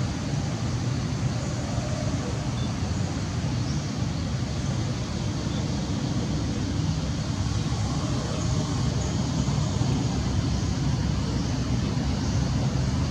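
Steady low rumbling background noise, with no distinct events standing out.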